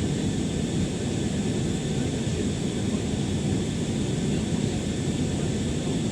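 Steady engine and airflow roar of an Airbus A321 with IAE V2500 engines, heard from inside the passenger cabin, with faint high steady whine tones over the low rumble.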